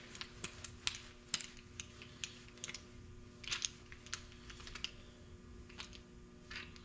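Ratcheting torque wrench clicking irregularly as the oil pump bolts on a 12-valve Cummins are torqued down to 25.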